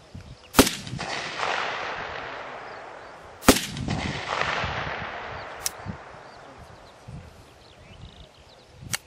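Single shots from an AK-pattern rifle: three loud cracks, about a second in, three and a half seconds in and near the end, each followed by a long fading echo. A fainter sharp crack comes between the second and third.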